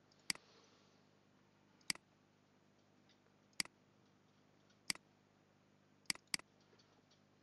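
Computer mouse button clicking: six sharp single clicks spaced a second or more apart, the last two close together as a double-click.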